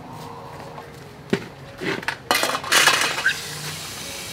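Metal basins and bowls clanking as they are set down on a concrete floor, with a loud cluster of clanks about two to three seconds in, then water starting to run from a garden hose near the end.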